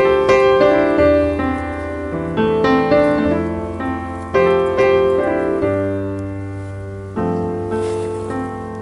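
Background piano music: notes and chords struck one after another, each ringing and fading, over held low bass notes.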